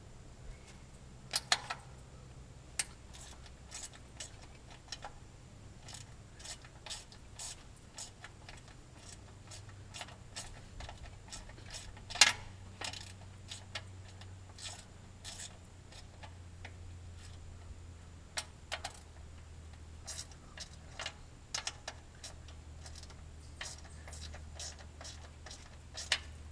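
Irregular sharp metallic clicks and clinks of hand tools working on lawnmower parts, loudest about a second and a half in and again around twelve seconds, over a low steady hum.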